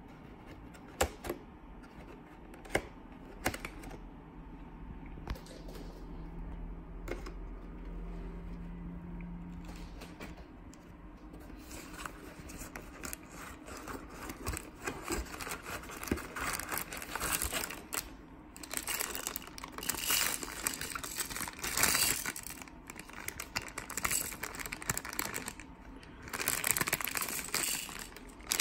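Cardboard Happy Meal box being handled and opened, with a few sharp snaps in the first seconds. Then rummaging through the paper food wrappers and crinkling a thin plastic toy bag, the crinkling getting louder and denser in the second half.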